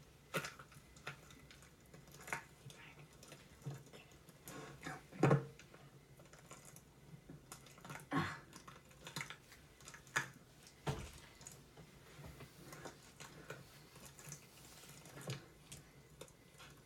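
Glue slime being kneaded by hand in a mixing bowl: irregular soft squelches and small clicks and taps, the loudest about five seconds in.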